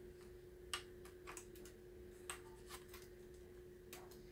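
Faint, scattered clicks and light taps of a knife and its sheath being handled, about five or six irregular ticks, over a faint steady hum.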